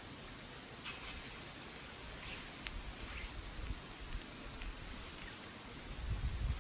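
Wood fire burning in a Picogrill-style folding fire pit: a steady hiss sets in abruptly about a second in, with a few sharp crackles and pops.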